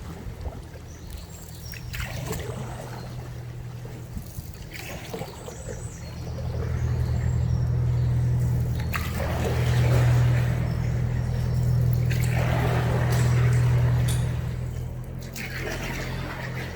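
Water trickling and pouring, over a steady low hum that grows louder about six seconds in and eases off near the end.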